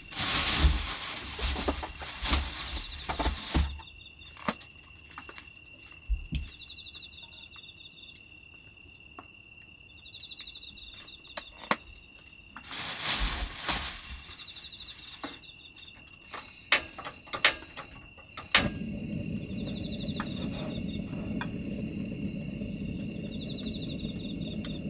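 Rustling and handling noises, then a few sharp clicks of a cassette gas stove's igniter before the burner catches and runs with a steady rush. Crickets chirp in the background.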